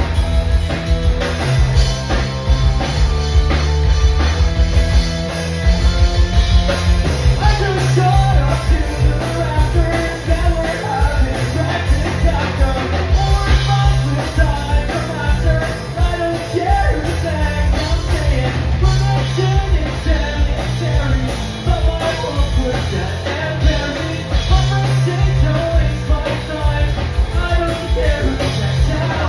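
Rock band playing loud with drums, bass and guitar, and a voice singing over it from about seven seconds in.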